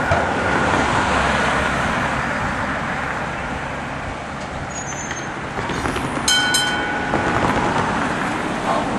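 Melbourne A-class tram passing on street track with road traffic: a steady rumble of wheels on rail and tyres on the road. A double metallic ring sounds about six seconds in.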